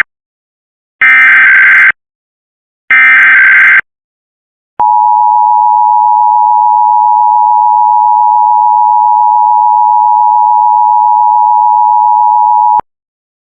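Emergency Alert System Required Monthly Test: two bursts of SAME digital header data, each just under a second, then the EAS two-tone attention signal (853 and 960 Hz) held steady for about eight seconds before cutting off.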